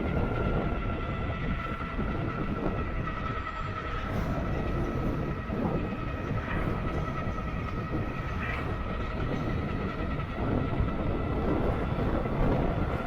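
Wind rushing and buffeting over the microphone of an e-bike ridden at high speed in strong gusts, with a steady high whine running underneath, typical of the e-bike's hub motor under load.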